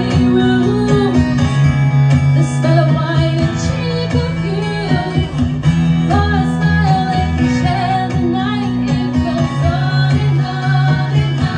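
Live amplified performance: a woman singing into a microphone over a strummed acoustic guitar, with held low bass notes underneath that change every couple of seconds.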